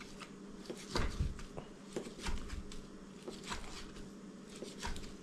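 A knife slicing raw chicken breast into pieces, knocking irregularly on a cutting board, the loudest knocks about a second in. A steady low hum runs underneath.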